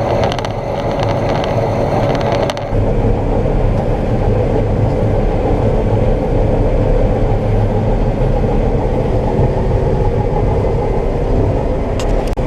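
Combine harvester running while it harvests soybeans, heard inside the cab: a steady loud drone with a held whine. Light ticking in the first two and a half seconds stops abruptly, and a couple of ticks come near the end.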